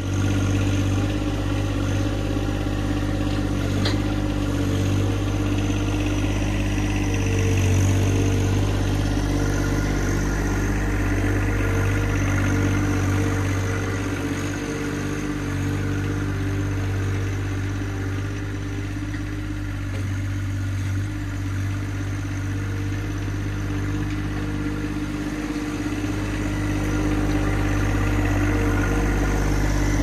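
John Deere 2025R compact tractor's three-cylinder diesel engine running steadily while the tractor is driven with its front-loader log grapple. The engine grows louder near the end as the tractor comes close.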